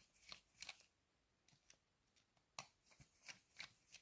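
Faint scattered clicks and small scrapes of a small screwdriver working the screws out of the underside of a 3D-printed model railway van, about eight light ticks in all.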